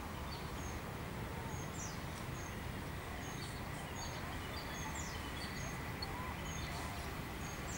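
Small birds chirping: short high notes repeated every second or so over a steady low background rumble.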